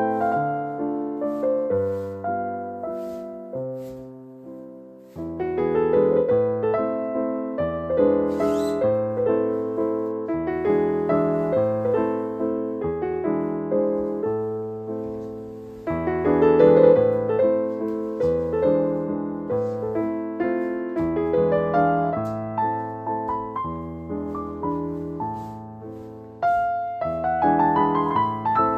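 Background piano music: a gentle melody with chords, in phrases that restart about every ten seconds.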